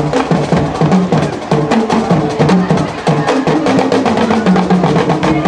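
A band playing: rapid, steady drumming under a low melody that steps up and down in pitch.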